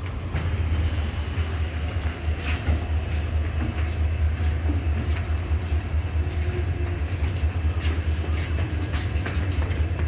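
Steady low rumble of an Indian Railways passenger train standing at a station platform, with scattered sharp clicks over it.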